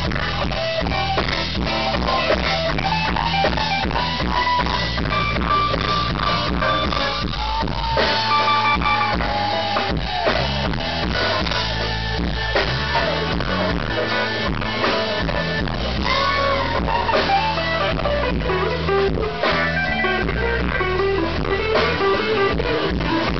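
Live blues-rock band: an electric guitar plays a solo with bent, sustained notes over a steady drum beat.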